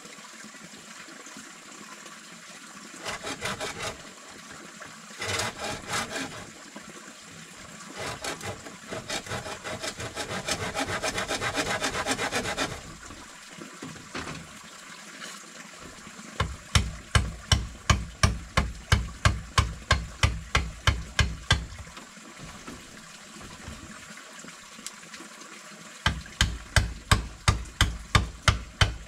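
A hand saw cutting wood in several bursts of rhythmic strokes. In the second half come two longer runs of louder, heavier strokes, about three a second, each with a low thud.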